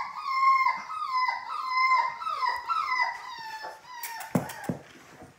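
Labrador puppy whining over and over, high-pitched calls about two a second, each sliding slightly down in pitch. It stops about four seconds in, followed by a few sharp knocks.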